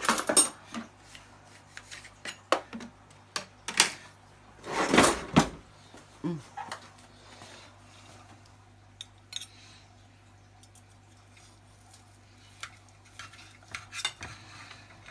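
A knife knocking and scraping against a dish while cutting cooked chicken breast. There is a quick run of sharp clicks and knocks, the loudest about five seconds in, then only occasional light taps over a faint steady low hum.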